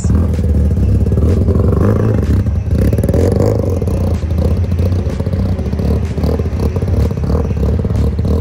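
Car engine running at low revs through a loud exhaust: a steady, rough low drone with a fast pulse and no big change in level.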